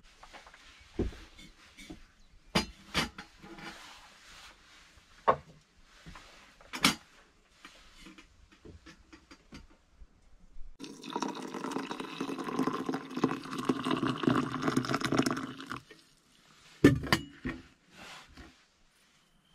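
Water poured into a metal mug holding fresh leaves, running steadily for about five seconds. Before it come scattered knocks and clinks of things being handled on a wooden table, and a sharp knock comes about a second after the pour stops, the loudest sound here.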